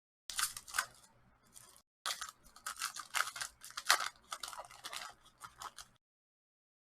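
Crackling foil wrapper of a trading-card pack being crinkled and torn open, in two runs of rustling with a short break about two seconds in.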